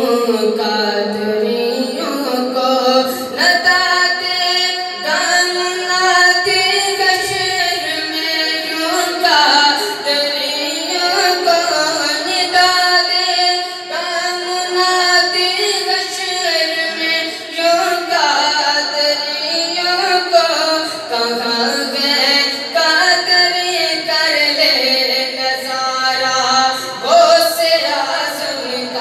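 A male voice singing a manqabat, an Urdu devotional poem, in long held and ornamented lines over a sung vocal backing.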